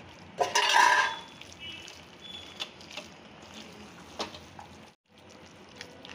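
A spatula scraping and knocking against a nonstick pan while mashing boiled potato and green peas into a simmering pav bhaji gravy. The loudest part is a harsh scrape about half a second in, followed by a few sharp clicks of the spatula on the pan over a soft wet squelching background.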